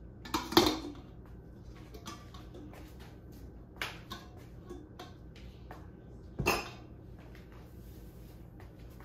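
Stainless steel pots and metal utensils clinking and knocking: a few separate clatters, the loudest about half a second in and another about two-thirds of the way through, with lighter clicks between.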